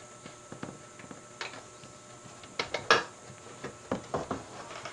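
The metal cover of a DVD player being fitted back onto the chassis and handled: a scattering of light metallic clicks and knocks, the loudest about three seconds in.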